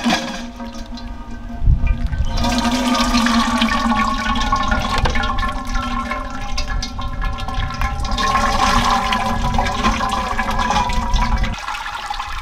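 Wet sloshing and splattering of thick, watery masala being ladled onto a perforated stainless-steel strainer, with the steel ladle scraping the mesh; it grows loud about two seconds in. A steady droning tone with overtones runs underneath.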